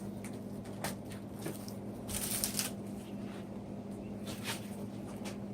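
Plastic packaging wrap crinkling and crackling as it is handled and torn, with a few sharp crackles and a denser burst a couple of seconds in, over a steady low hum.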